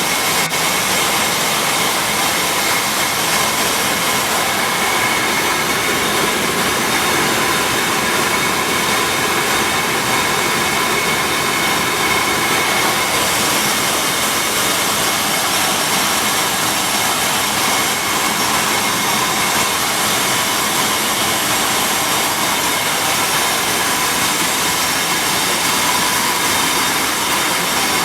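Corn milling plant running: a loud, steady roar of grinding and peeling machinery with a constant high whine.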